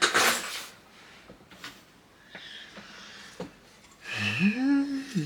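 A short, loud breathy noise, then a few faint clicks of small plastic kit parts being handled, and near the end a hummed, rising "hmm" from a man thinking aloud.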